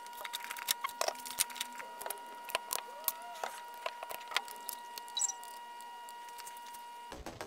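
Small clicks and rattles of a battery charger's plastic connectors and leads being handled, over a steady high electronic whine. Music begins near the end.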